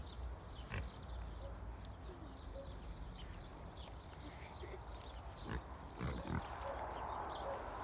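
Pet piglets grunting as they root and feed on scattered peanuts, with a few small knocks and a rustling noise from about six seconds in.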